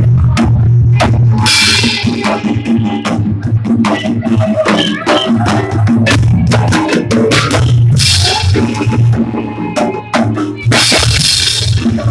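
Jaranan music played live: drums beating a busy rhythm over a steady low tone, with cymbal crashes about a second and a half in, around eight seconds and near the end.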